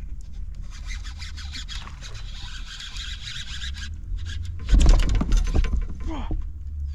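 Handling noise while a hooked bass is fought and landed from a kayak: rubbing and scraping against the boat. A loud, sudden clatter comes about five seconds in and goes on for about two seconds.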